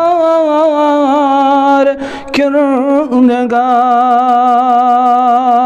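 A man singing a devotional verse in praise of God without accompaniment, holding long, wavering notes with a short breath about two seconds in.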